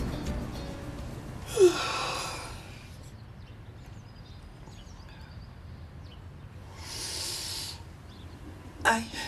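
A sleeping woman breathing heavily: a sharp sigh-like exhale about one and a half seconds in, a softer long breath later on, and a short groan near the end. The fading tail of music is heard at the very start.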